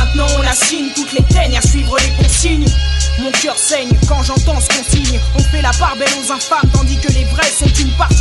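Hip-hop track: rapped vocals over a beat with heavy bass and drums.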